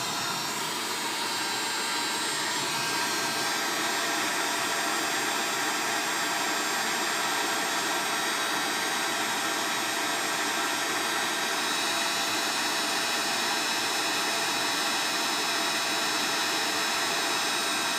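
Hot air rework gun blowing steadily, heating a new USB charging port on a phone circuit board to melt the solder and set it in place.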